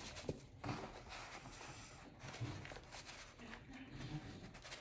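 Faint rustling of cardstock pages in a handmade paper photo folio being turned and folded over, with a few soft taps and clicks as the panels move.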